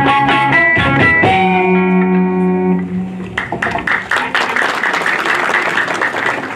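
A short piece of plucked-string music from a traditional Ethiopian band ends on a held note about three seconds in. Applause and hand clapping follow.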